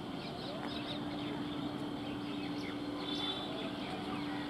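Electric multiple unit local train running slowly with a steady low hum, while birds chirp in short, quick calls throughout.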